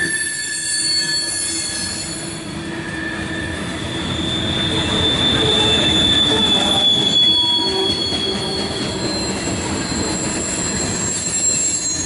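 Loaded covered hopper cars of a CSX grain train rolling past at close range: a steady loud rumble of steel wheels on rail, with thin high-pitched squealing tones from the wheels.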